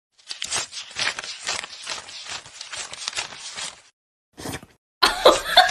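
A quick, irregular run of light taps or clatters that stops after about three and a half seconds. A few more come just after, then a louder, different sound begins near the end.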